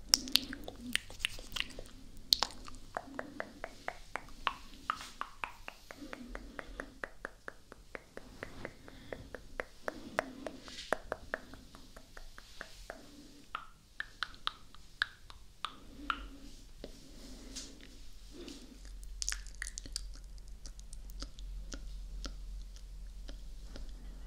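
Close-miked ASMR mouth sounds: wet lip smacks, tongue clicks and kiss sounds in an uneven stream of sharp clicks.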